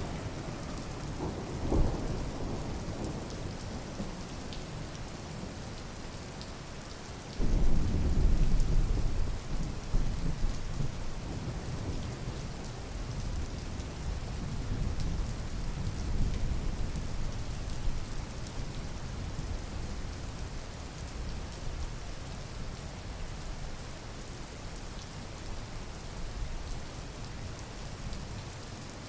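Steady rain falling, with thunder: a short low thump about two seconds in, then a sudden loud peal about seven seconds in whose low rumble rolls on and dies away over the next ten seconds.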